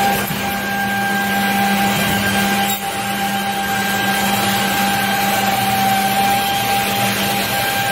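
Felder G480 edgebander running: a steady machine hum with an even, high whine from its motors.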